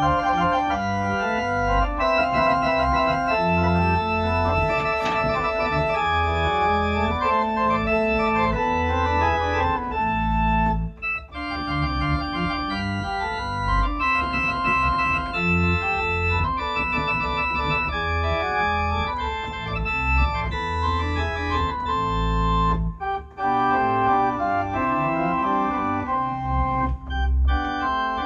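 Makin Westmorland digital organ playing sustained chords over deep bass notes, with two short breaks in the sound.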